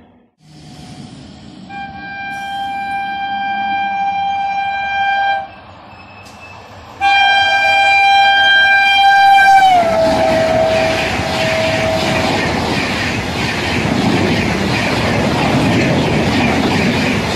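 A passenger train's locomotive horn sounds two long single-note blasts as the train approaches at speed. The second blast drops in pitch as the locomotive passes, then fades. After that the coaches rush past with steady wheel clatter on the rails.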